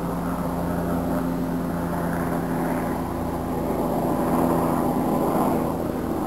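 News helicopter flying off overhead: a steady engine and rotor drone that swells slightly partway through.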